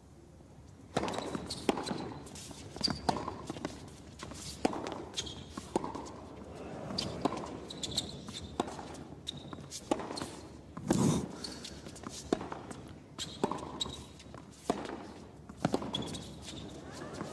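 A tennis rally on an indoor hard court: sharp racket strikes on the ball and ball bounces about once a second, the loudest hit near the middle, with short high sneaker squeaks on the court surface between shots.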